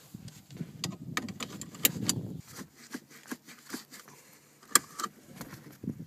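Seatbelt tongue and buckle in a VW Golf Mk4, clicking and rattling as the belt is buckled in and tugged to test the buckle's anchor. The belt webbing and seat fabric rustle in the first half, and a sharp metal click near the end is the loudest sound.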